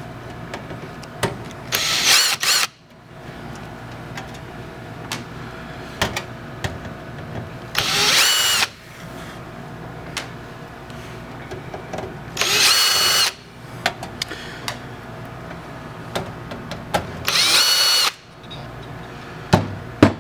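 Power drill-driver with a Phillips bit backing out the four screws of a PC power supply cover: four short whining runs of the motor, each under a second, several seconds apart, with small clicks of handling between them.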